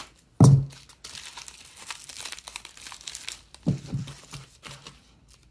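Plastic bubble mailers rustling and crinkling as an inner padded envelope is pulled out of an outer one and handled, with a sharp thump about half a second in and a couple of lighter knocks near the end.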